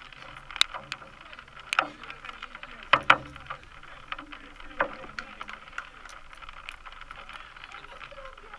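Outdoor ambience of an amateur football match: faint distant shouts from players and spectators, with a few sharp knocks, the loudest a pair about three seconds in.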